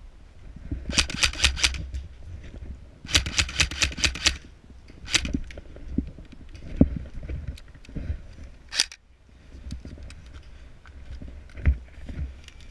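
Krytac LVOA-C airsoft electric rifle firing two short full-auto bursts of rapid sharp cracks, about a second in and about three seconds in, followed by a few scattered single shots.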